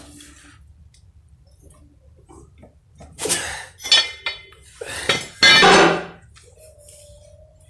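Metal tools clanking and scraping on a truck's front wheel hub as its bearing nut is tightened: a few sharp metallic knocks in the second half, then one longer, loudest scrape.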